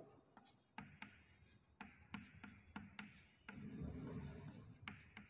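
Chalk writing on a blackboard, faint: a string of short taps and scratches as letters are formed, then a longer scraping stroke starting about three and a half seconds in.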